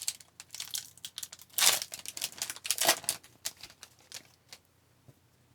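Hockey card pack's foil wrapper being torn open and crinkled: a run of sharp crackling rustles, loudest about two and three seconds in, dying away near the end.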